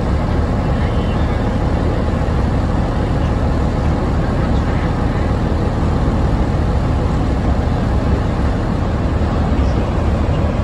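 Container freight train passing close by on the adjacent track: a steady, loud rumble of wagons and wheels on rail, heard from inside a passenger carriage.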